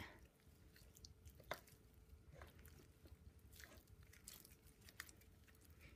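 Faint, scattered sticky clicks and squelches of slime being stretched and kneaded by hand.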